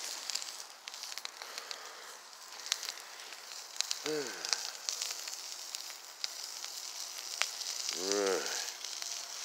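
Smoked sausages sizzling on a ridged griddle over campfire coals, with frequent small crackling pops. About four seconds in a short pitched call falls in pitch, and near the end a slightly longer one rises and falls.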